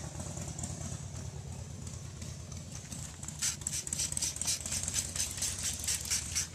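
Hand-held trigger spray bottle squirting water, a quick run of short hissing sprays at about three a second starting about halfway in, washing down wet brown latex paint. A steady low hum runs underneath.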